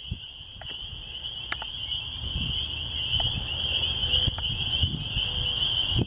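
A dense chorus of spring peepers, a continuous high-pitched peeping, over a steady low rumble, with a few sharp clicks.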